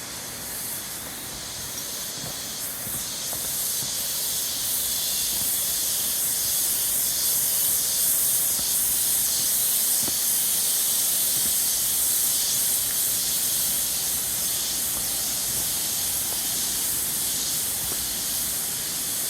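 Chorus of cicadas: a loud, high-pitched steady buzz that swells over the first few seconds, then holds.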